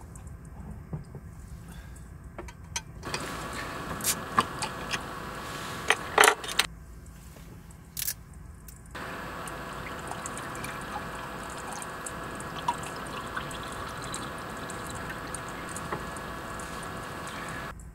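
Water pouring in two spells that start and stop abruptly, with sharp clinks and knocks of handling in between.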